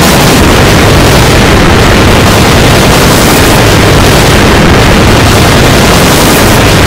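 Massively overdriven, clipped audio from a layered remix effect: a constant, very loud wall of harsh noise with no tune or words standing out.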